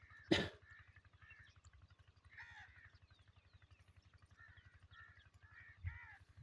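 Many crows cawing, short harsh calls overlapping one after another, over a steady low throb. A sharp knock about a third of a second in is the loudest sound, and a dull thump comes near the end.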